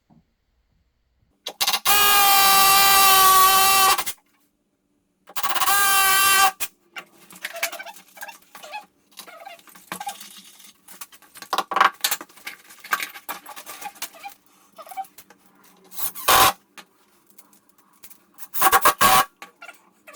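Power drill running at steady speed, first for about two seconds and then again for just over a second, drilling holes for pipe clips. Scattered clicks and knocks of handling follow, with two more short bursts from the drill later on.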